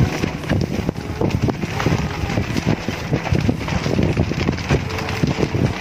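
Pot of shrimp simmering, with dense, irregular bubbling and popping.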